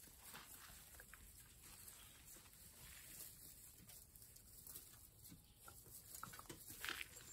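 Near silence, with faint scattered small sounds from golden retriever puppies moving about in hay, and a brief louder sound near the end.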